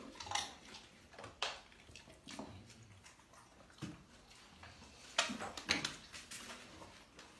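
Scattered light knocks and taps, about five in all, with faint rustling between them, as a puppy scrambles on and off a plastic step platform.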